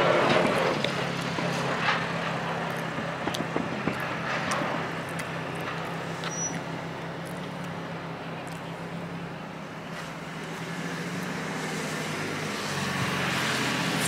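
A motor vehicle engine running steadily with a low hum, a little quieter in the middle, under a wash of outdoor traffic noise.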